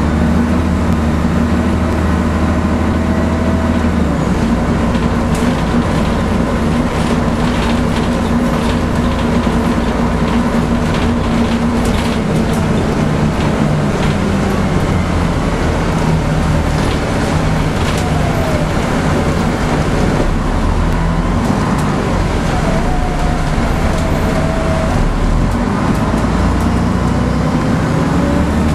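Cabin sound of a Scania N113CRB non-air-conditioned city bus on the move: the diesel engine runs steadily with road noise, and fittings give off scattered rattles and clicks. The engine note shifts about four seconds in and again near the end as the bus changes speed.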